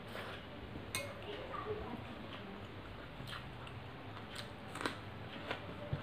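Close-up eating sounds from a person eating rice by hand: chewing, with fingers mixing rice on a metal plate. About five sharp clicks are scattered through it, the loudest near the end.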